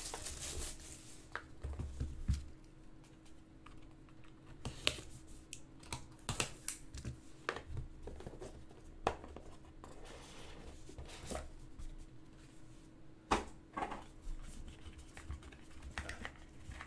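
Light, irregular taps, clicks and rustles of a cardboard trading-card hobby box being handled and opened, its lid lifted off to get at the cards.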